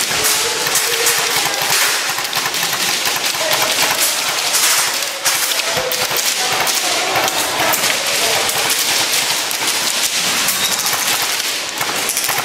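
Dense, continuous crackle of many airsoft guns firing on full auto, with BBs rattling against walls and surfaces.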